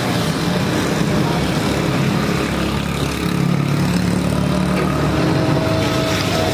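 Motor traffic running steadily, with a low engine hum that swells and fades over a few seconds.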